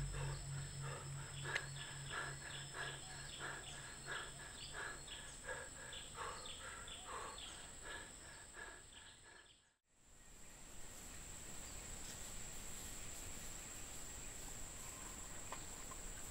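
Faint forest ambience. Rhythmic chirping, about three calls a second, fades away over the first eight seconds. The sound drops out briefly near ten seconds, then a steady high-pitched insect drone comes in over a faint outdoor background.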